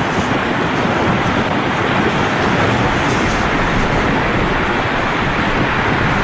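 Blizzard wind blowing hard and steadily, a dense rushing noise with heavy low rumble buffeting the microphone.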